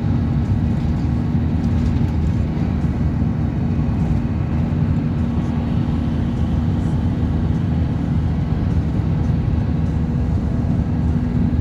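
Inside the cabin of a coach bus cruising on an expressway: a steady drone of engine and tyre-on-road noise, with a faint constant hum.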